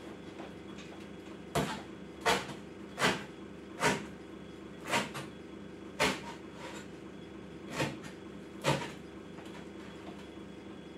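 A kitchen cleaver chopping cabbage leaves on a wooden cutting board: about eight chops, roughly one a second.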